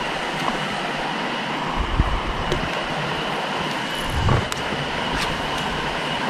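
Steady rush of river rapids at a small waterfall, with two low bumps about two and four seconds in.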